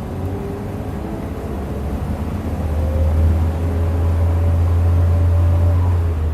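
Engine of a 2012 Hyundai Aerotown city bus pulling under load, a deep drone growing louder with a faint whine slowly rising in pitch, then dropping off suddenly at the end.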